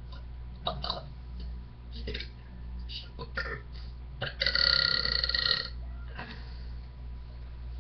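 A woman belching on purpose: a few short sounds, then one loud, long pitched belch lasting about a second just past the middle. A steady low hum lies underneath.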